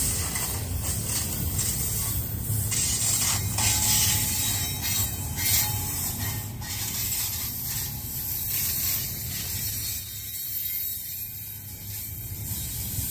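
Double-stack intermodal container train rolling slowly past: a steady rumble of steel wheels on rail, with clicks and clanks from the well cars that come thickest in the first half.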